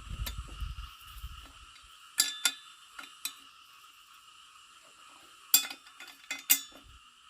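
A few sharp clinks and knocks, two close together about two seconds in and a quick cluster near the end, over a steady high drone of insects.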